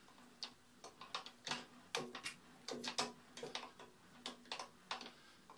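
Light, irregular clicking from the milling machine, about two to three clicks a second, as the spindle carrying the tram bar and dial indicator is worked by hand during tramming.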